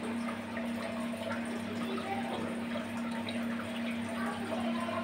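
Aquarium water trickling and splashing steadily, over a steady low hum.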